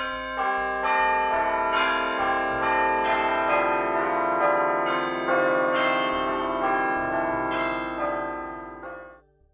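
Bell chimes struck in quick succession, the notes overlapping and ringing on, fading out near the end.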